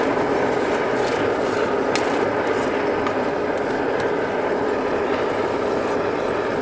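Forge blower driving air into a charcoal fire: a steady rush of air over an even, constant motor hum.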